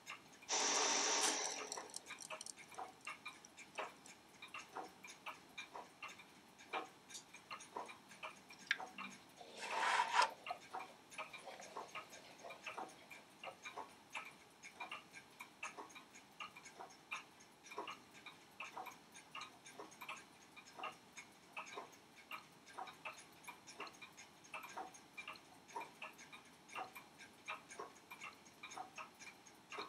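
Steady light ticking of a timepiece, a quick run of small clicks, with two brief louder rushing noises, one about a second in and one around ten seconds in.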